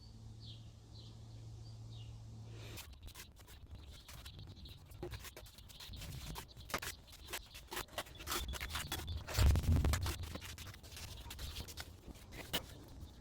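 Scraping, rubbing and quick clicking of hand work on mortar, with a heavier knock about nine and a half seconds in. A low hum stops about three seconds in.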